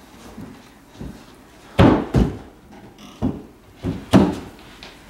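A series of heavy thuds, about five, coming irregularly and partly in pairs. The loudest is a little under two seconds in.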